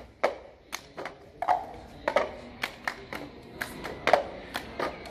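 A run of sharp hand claps and taps, roughly two a second and unevenly spaced, some leaving a short ring.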